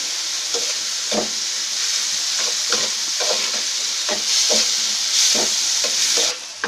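Snake gourd seeds, garlic, onion and green chillies sizzling in mustard oil in a wide metal pan, while a metal spatula scrapes through them in repeated strokes. The water the seeds gave off is being fried away on low heat. The sizzle drops away suddenly near the end.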